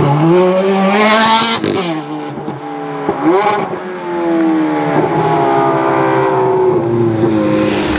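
Ferrari 430 Scuderia's V8 accelerating hard, its note rising and then breaking sharply at an upshift about a second and a half in. It shifts again around three seconds, then holds a long, slowly falling note.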